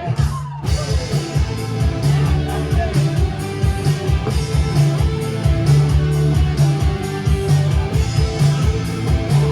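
Live rock band playing an instrumental passage, with electric guitar, bass and drums, heard through a loud venue PA.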